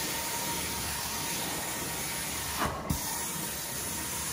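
Sapphire carpet-cleaning extraction wand hissing steadily as it sprays and sucks water back out of the carpet, with a faint steady whine under the hiss. About two and a half seconds in, the hiss briefly dips and there is a low knock.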